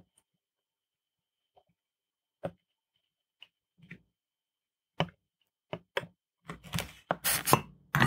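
Light, sparse clicks and taps of a soldering iron and solder wire working on the pins of a PCB pin header, spaced a second or so apart. Near the end comes a denser run of louder knocks and handling rustle as the tools are lifted away from the board.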